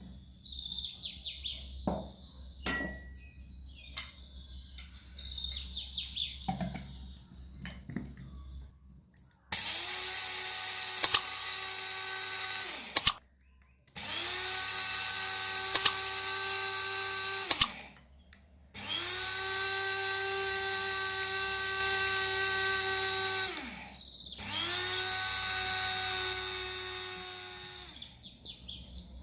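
Small electric kitchen appliance motor switched on four times in runs of a few seconds, each spinning up to a steady whine and winding down, with a few sharp clicks during the first two runs. Before it, faint bird chirps.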